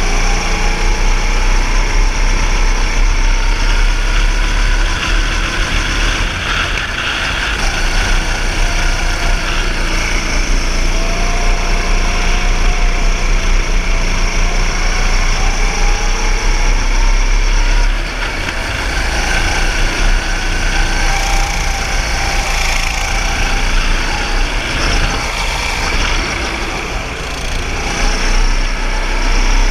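Go-kart engine running hard on track, its pitch climbing on the straights and sagging when the driver lifts, with a brief drop about two thirds of the way through. Wind rumbles on the onboard microphone underneath.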